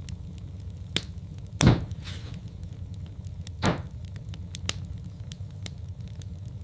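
Wood fire in a fireplace crackling, with many small sharp ticks over a steady low rumble and two louder pops about two seconds apart.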